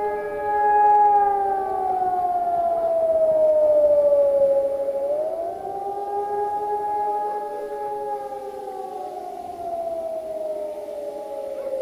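Civil defense siren wailing: its tone holds, then slowly falls over a few seconds, rises again about five seconds in, and falls slowly once more toward the end, with a fainter second siren tone crossing it.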